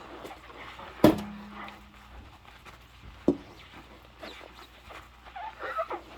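Dishes handled and scrubbed with rubber gloves. About a second in there is a loud clink that rings on briefly, a softer knock comes a couple of seconds later, and rubber gloves squeak against wet dishware near the end.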